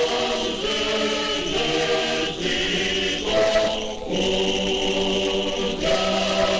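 Abkhazian folk choir singing in several voice parts, held notes that move to new pitches every second or two.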